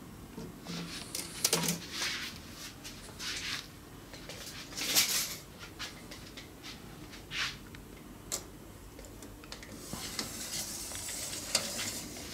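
Scattered clicks, light knocks and scrapes of a steel tape measure being handled against the panels of a homemade horn speaker cabinet. There is a longer scrape about five seconds in and a stretch of rustling hiss near the end.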